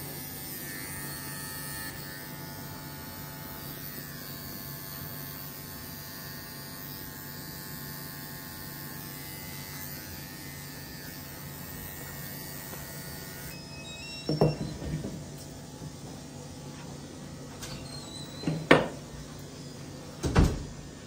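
A Wahl dog clipper runs with a steady hum while clipping the coat, then stops about two-thirds of the way through. Three loud, sharp snips from thinning shears follow a few seconds apart.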